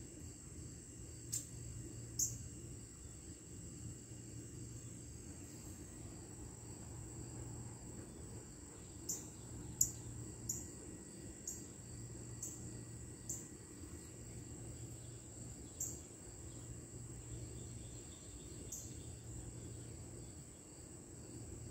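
Crickets chirping in a steady high trill, with short sharp clicks now and then, over a faint low steady hum.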